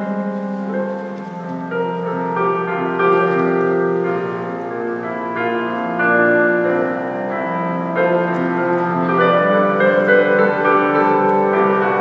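Mixed choir singing slow, sustained chords with piano accompaniment, the harmony shifting every second or two.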